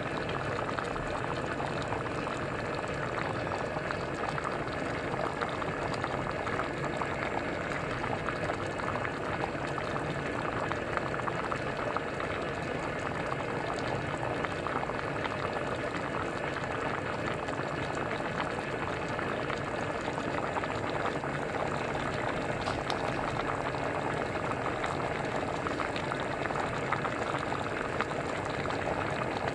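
A pot of champorado (chocolate rice porridge) boiling: steady bubbling with many small pops.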